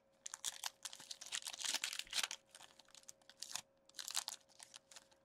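Crinkling and crackling of a trading-card pack wrapper and cards being handled by hand, in irregular bursts, with a faint steady hum underneath.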